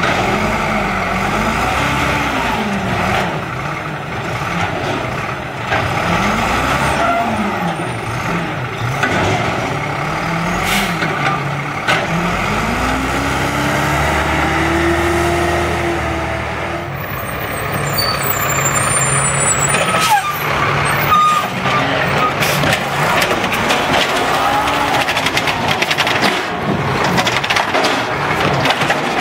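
Automated side-loader garbage truck working a curbside pickup: its diesel engine revs up and down again and again as the hydraulic arm cycles. In the second half come sharp knocks and clatter as a wheeled cart is gripped, lifted and dumped into the hopper.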